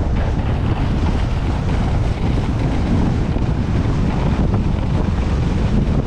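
Wind rushing and buffeting on an action camera's microphone as a snowscoot runs down a groomed ski slope: a loud, steady rumble, mixed with the hiss of the snowscoot's skis sliding over the snow.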